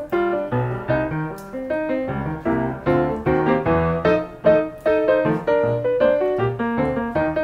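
Background piano music: a light melody over a bass line with a steady beat.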